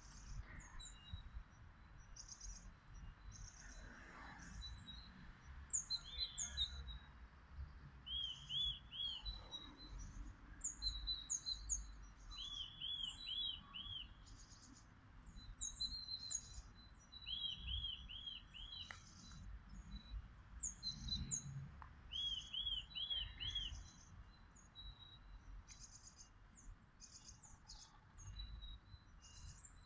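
Several songbirds singing: one bird repeats a short phrase of four or five identical arched notes about every four to five seconds, among many high chirps and twitters from others. A low rumble runs underneath.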